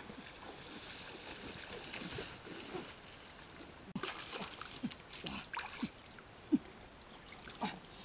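Stream water rushing and sloshing around a person wading; from about halfway a run of short, irregular hand splashes and sloshes at the water's edge, one louder than the rest.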